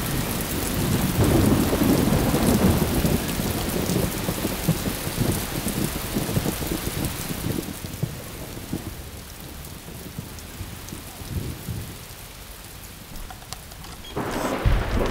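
Rain falling steadily, with a long low rumble of thunder in the first few seconds that slowly dies away. A louder burst with a low thump comes near the end.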